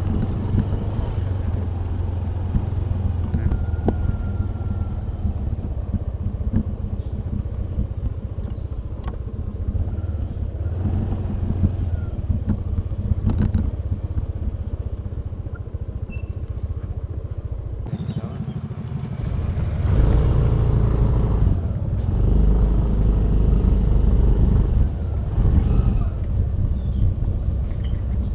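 A motor vehicle's engine running steadily as it travels, getting louder from about 20 seconds in.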